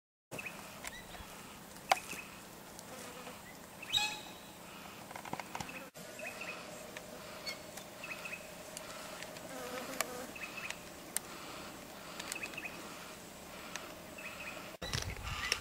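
Outdoor field recording of short, high bird chirps repeating every second or so, with a sharp click about two seconds in. Near the end the background turns to a louder low rumble.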